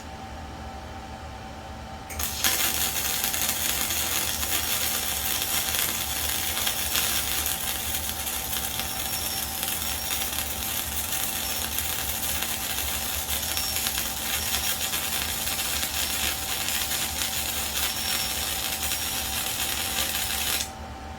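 Arc welder laying a weld bead: a steady, dense crackling arc that strikes about two seconds in and stops about a second before the end, over a steady hum.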